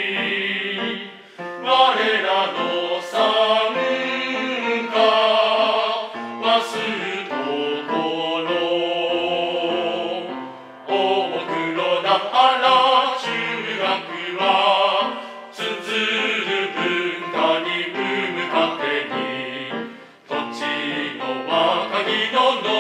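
Male voice choir singing a Japanese school song with piano accompaniment, in long phrases separated by short breaks.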